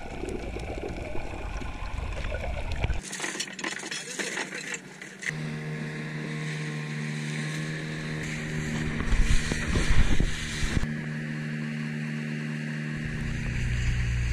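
Water splashing and sloshing, then, about five seconds in, a dinghy's outboard motor running steadily as the boat moves over the water. A few louder splashes come around nine to ten seconds in.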